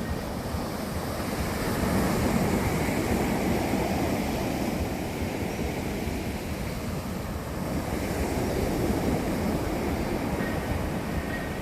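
Sea surf washing onto the shore in a continuous rush, swelling louder about two seconds in and again around eight seconds as waves break.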